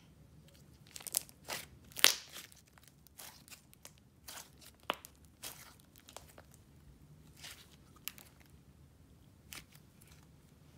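Swirled clay slime being squished, folded and stretched by hand: a string of irregular crackles and small pops, the loudest about two seconds in.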